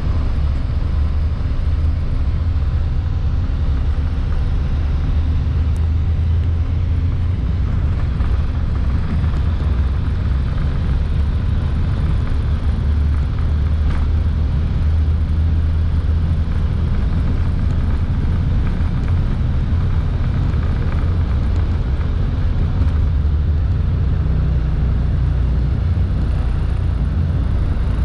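Cabin noise of a jet airliner on its takeoff run: steady engine noise over a low rumble of the wheels on the runway.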